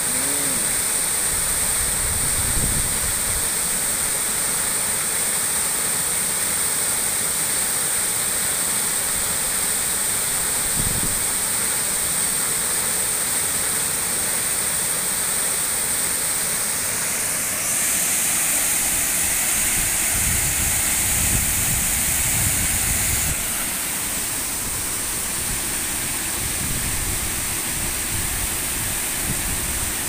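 Waterfall pouring into its plunge pool: a steady, loud rush of falling water. The rush brightens a little past halfway and drops back slightly a few seconds later, with a few short low rumbles along the way.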